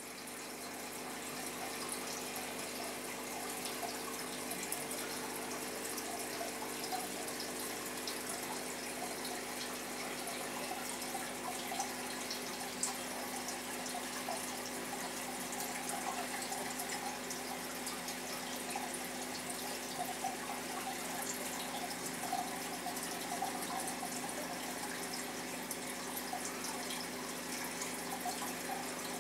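Aquarium water circulating: a steady trickling, bubbling splash of filter or aerator water at the tank surface, over a faint constant electrical hum from the pump.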